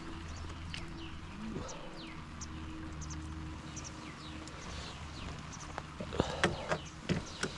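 Birds chirping outdoors, with many short, quick falling calls over a low steady hum. About six seconds in, a few sharp clicks and knocks break in, louder than the birds.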